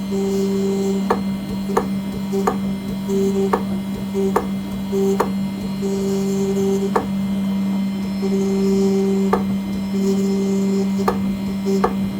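CNC engraving machine cutting an aluminium nameplate. A steady low hum runs throughout, a higher tone starts and stops in short stretches, and sharp clicks come every half second to a second.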